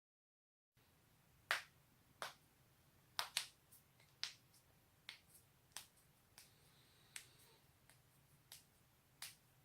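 Human joints, neck and back, being cracked: a series of sharp pops, about a dozen, starting about a second in, the loudest in the first few seconds and the later ones weaker.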